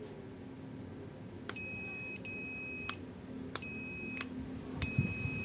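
Continuity tester beeping in a steady high tone three times, the first beep about 1.5 s in, as the angle grinder's power switch is clicked on and off, each beep starting and stopping with a sharp click of the switch. The oiled switch is making and breaking contact, so it no longer sticks in the on position.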